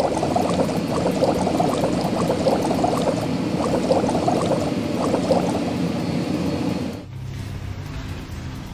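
Cartoon car-wash sound effect of bubbling, gurgling water, dense and steady. It cuts off about seven seconds in, leaving quieter background music.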